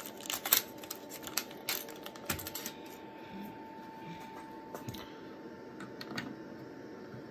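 Light clicks and rattles of a small metal tin as an antenna is lifted out of it, then a few faint clicks as the antenna is threaded onto a brass connector.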